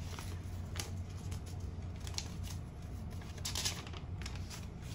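Folded paper sheets rustling as they are unfolded and handled, with a few short crackles, the loudest about three and a half seconds in.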